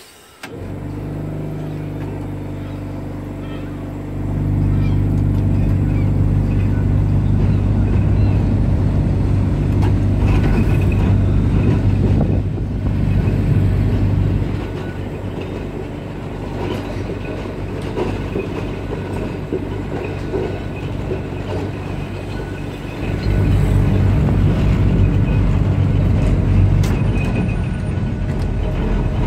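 Open-top Blackpool Boat tram 227 pulling away and running along the street track: a steady electric motor hum with wheel-on-rail rumble, stepping louder about four seconds in as power is applied, easing off in the middle while it coasts, and rising again near the end.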